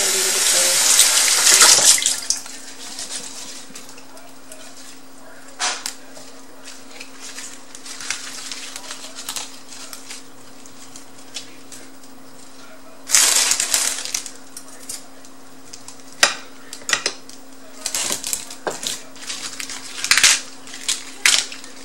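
Fresh green leaf lettuce being handled and laid onto a plate: bursts of leafy rustling, the loudest in the first two seconds and again about 13 seconds in, with scattered soft taps and rustles between. A steady low hum runs underneath.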